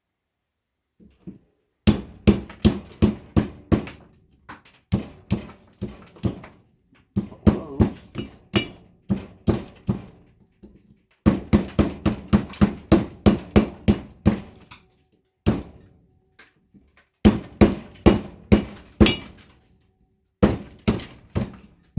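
Hammer blows breaking open a light ballast's brittle potting compound. The blows come in quick runs of about four or five a second, with short pauses between the runs.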